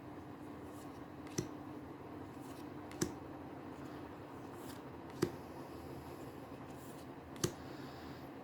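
Trading cards being handled one at a time, with a sharp snap or click about every two seconds as each card is flicked or set down, four in all. Under it runs a faint steady room hum.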